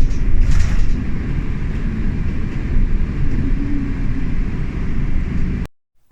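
A car driving along: a steady low rumble of road and engine noise, which cuts off abruptly near the end.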